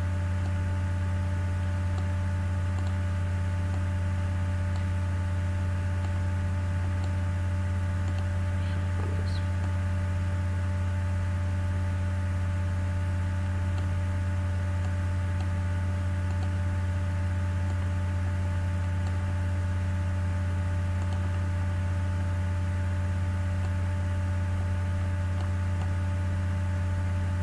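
Steady electrical mains hum with a ladder of buzzing overtones, picked up by the recording chain, unchanging throughout, with one faint tick about nine seconds in.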